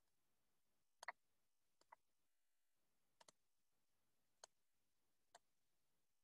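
Faint computer mouse clicks: five short clicks spread about a second apart, a double click about a second in and another about three seconds in, with near silence between.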